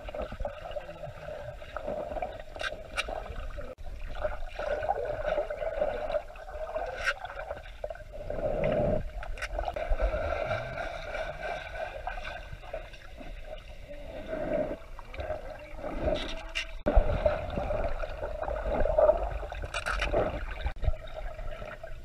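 Muffled underwater sound in a swimming pool: water sloshing and bubbling over a steady hum, with swelling surges and a few sharp clicks as a dog dives and paddles.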